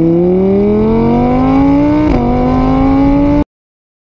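Car engine accelerating through the gears: its pitch rises steadily, drops at a gear change about two seconds in, and climbs again. It cuts off suddenly shortly before the end.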